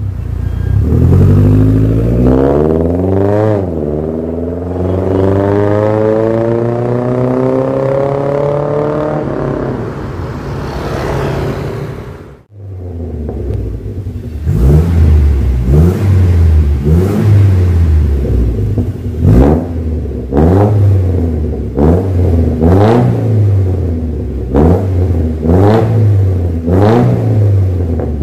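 Mercedes-Benz 230E's 2.3-litre four-cylinder engine heard through an aftermarket stainless catback exhaust with a remote cutout valve. First the car accelerates away, its pitch climbing for several seconds with one gear change, then fading out. After a sudden cut it is revved in quick blips while standing still, about one rev a second.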